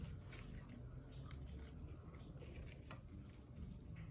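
Faint crackling and rustling of fresh lettuce and herb leaves being handled and folded, a scatter of small crisp ticks.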